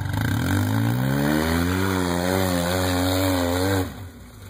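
Side-by-side UTV engine revving up from idle, rising in pitch for about a second. It is then held at high revs with a slight wavering, working under load up a steep dirt hill. It drops off suddenly near the end as the throttle is let off.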